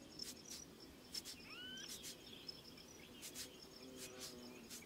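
Faint outdoor nature ambience: a steady high insect chirring with scattered faint ticks, and one short rising bird chirp about a second and a half in.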